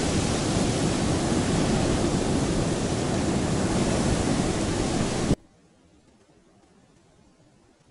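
Sea surf washing onto a sandy beach: a steady rush of noise that cuts off suddenly about five seconds in, leaving near silence.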